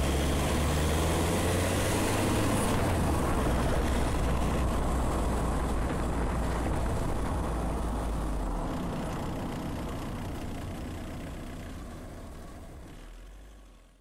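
Car driving, heard through a phone microphone strapped to the front bumper: a steady rumble of road and wind noise that fades out over the last few seconds.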